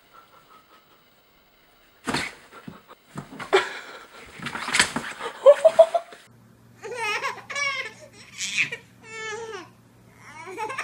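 A corgi drops into a fabric storage bin with a thump about two seconds in, followed by loud laughter. After that comes a baby laughing in short bouts over a low steady hum.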